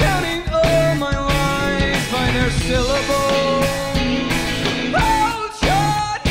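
Rock band playing live: a voice sings a wavering, gliding melody over guitar and a steady drum beat.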